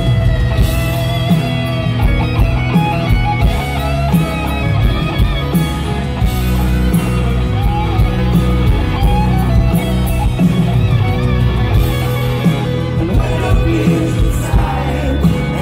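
Live rock band playing loudly, led by an electric guitar solo with gliding, bending notes over bass and drums.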